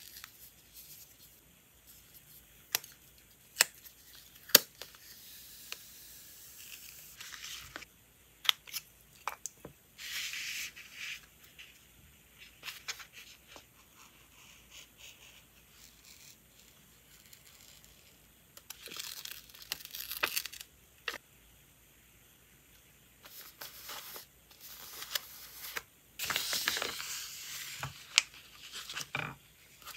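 Wide washi tape being peeled off its roll in several stretches of crackly tearing, with sharp clicks and taps as the tape and roll are handled and cut with a craft knife on paper.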